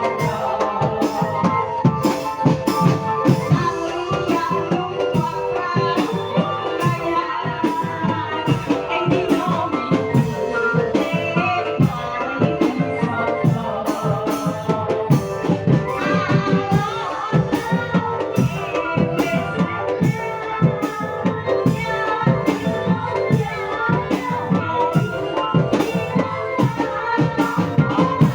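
Lively music with a fast, steady drum beat and melodic instruments playing continuously.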